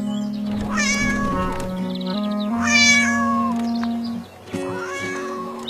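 A cat meowing three times, each a drawn-out rising-then-falling meow, over background music with sustained notes.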